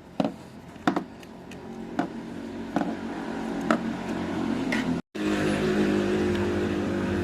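A small scooter engine running steadily, with a few sharp clicks over it in the first four seconds. The engine is louder after a sudden cut about five seconds in.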